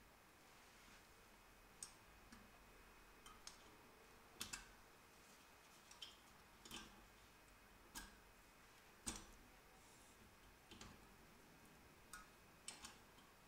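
Faint, irregular metal clicks, a dozen or more and some in quick pairs, as water pump pliers press a drum brake shoe's hold-down spring and cap onto its retaining pin on a VW Golf 1 rear brake.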